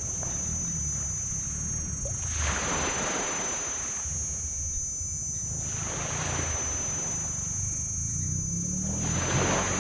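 Tropical sea waves washing onto a sand beach, one swash about every three seconds. Under them runs a steady low engine drone, with a constant high-pitched buzz above.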